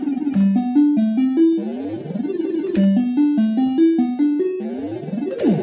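PCP Supa Streak fruit machine's electronic sound effects as credit is added: two runs of quick, stepped, rising beep notes, with swooping glide tones between them.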